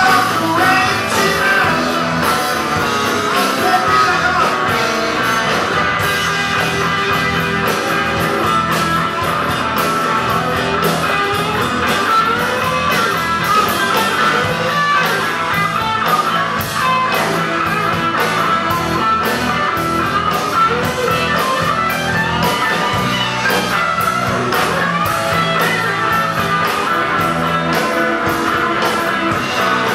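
Live rock band playing loudly, with electric guitars through amplifiers and drums.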